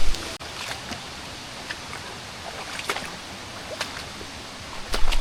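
Steady rushing of waterfall and creek water, with a few scattered sharp clicks about once a second. There is a brief low rumble at the start and again near the end.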